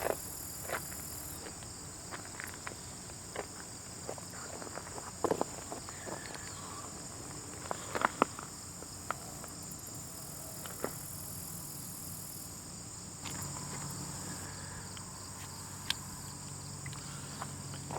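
Ant-colony sound effect: scattered small sharp clicks and scratches, irregularly spaced, over a steady high-pitched insect chorus and a low hum. The hum grows slightly louder about two-thirds of the way through.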